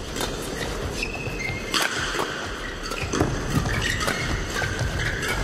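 Badminton doubles rally: a quick series of sharp racket strikes on the shuttlecock, with brief squeaks of shoes on the court.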